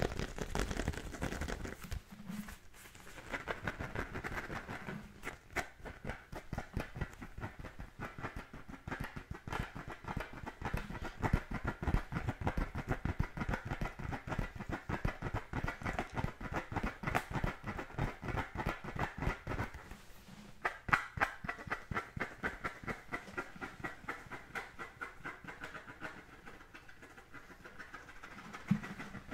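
Fingernails scratching the pebbled surface of an American football in quick, rapid strokes, a dense rhythmic rasping that pauses briefly twice.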